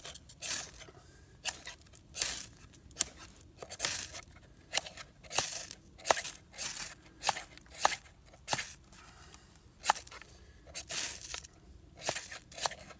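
Ferro rod being struck again and again with the spine of a knife: about eighteen quick rasping scrapes, some short and sharp, some drawn out, with brief pauses between. The knife's spine lacks a good striking edge, which the striker blames for the poor sparks.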